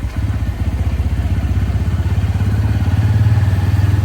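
Motorcycle engine running under way, a fast, even pulsing exhaust note that grows slightly louder a couple of seconds in.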